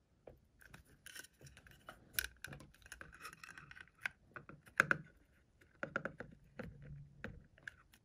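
Small screwdriver tip scraping and clicking against a hard plastic motor housing as it is pried at the seam, in scattered light clicks and short scrapes; the housing does not come apart.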